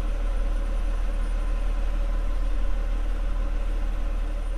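Diesel engine of an MAN tipper truck idling steadily, a deep low hum.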